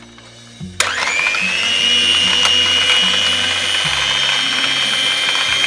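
Electric hand mixer switched on about a second in, its motor whine rising quickly and then running steadily as the beaters whip liquid cream. This is the low-speed first stage of whipping the cream.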